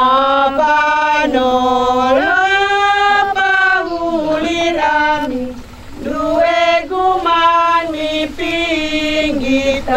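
A woman's voice singing a slow devotional song, with long held notes that slide from one pitch to the next and a short break about halfway through.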